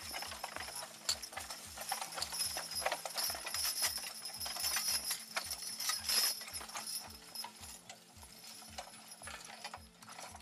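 A team of draft horses walking as they pull a sulky plow, with hoof steps and harness chains clinking. Background music with a steady beat plays underneath.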